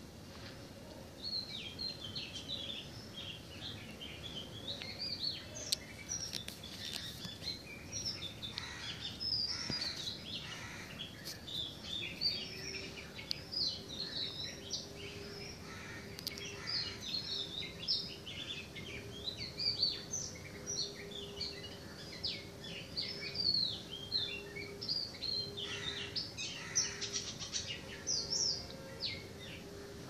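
Many small birds chirping together in a busy, overlapping chorus of short high calls. A faint steady hum joins in about a third of the way through.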